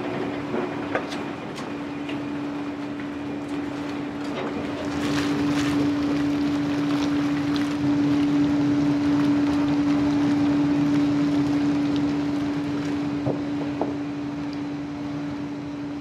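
A steady machine hum holding one pitch, over a rushing noise with scattered light clicks and knocks; it grows louder about five seconds in.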